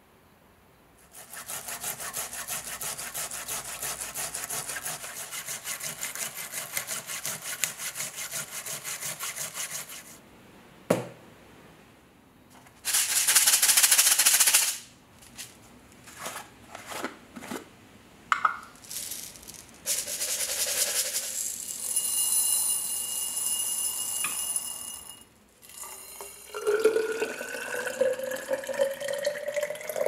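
A run of bench sounds. First comes about nine seconds of fast, even scraping strokes, then a single knock and a short loud rush. Next come clicks as a plastic jar is opened, then a hissing pour. Last, liquid is poured into a tall glass cylinder, the pitch rising steadily as it fills.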